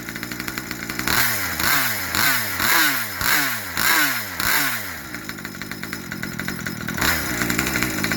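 Small two-stroke engine running, its throttle blipped about seven times in quick succession, the pitch dropping after each blip, then settling back to steady running for the last few seconds.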